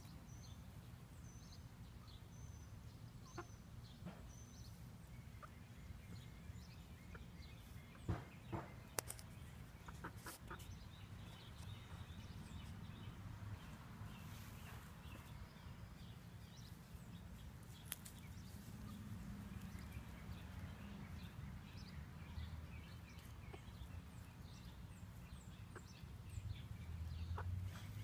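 Backyard hens clucking softly as they forage, with scattered short high chirps and a few sharp clicks, over a steady low hum.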